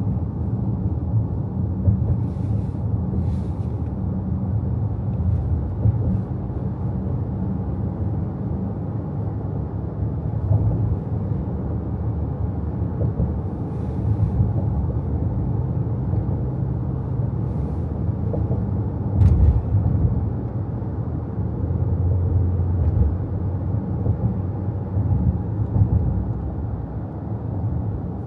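Car driving along a road: a steady low rumble of engine and tyre noise, with a brief thump about two-thirds of the way through.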